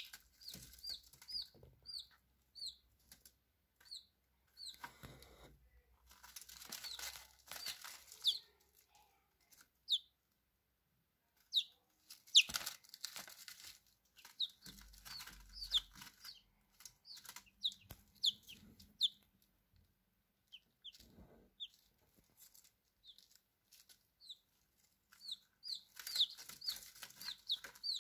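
Young chicks peeping: short, high cheeps that fall in pitch, scattered irregularly, sometimes several in quick succession, with stretches of rustling.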